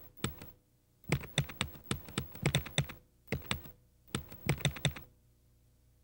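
Rapid typing keystrokes in irregular bursts, stopping about five seconds in and leaving only a faint steady hum.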